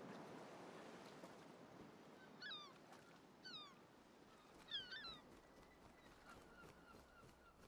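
Faint animal calls over a low hiss: three short descending chirps about a second apart, then a quick run of short, even peeps.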